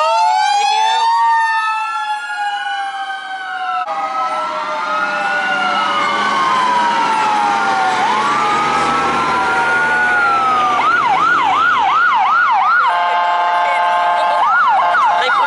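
Several emergency-vehicle sirens sounding at once, their wails rising and falling out of step with each other. Past the middle one switches to a fast yelp of about four sweeps a second, broken by a steady blaring horn for about a second and a half.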